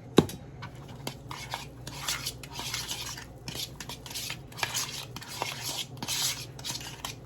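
A utensil stirring and scraping cinnamon filling in a bowl, mixing in added cinnamon: irregular scrapes and clinks, with a sharp clink just after the start.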